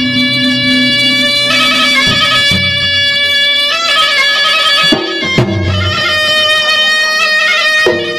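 Traditional Makassar gendang ensemble music: a shrill double-reed pipe (puik-puik) playing long held notes that step to a new pitch every second or two, over drumming.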